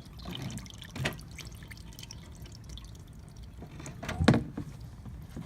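Engine coolant dripping from the radiator into a drain pan, with a clunk about a second in and a louder knock a little after four seconds.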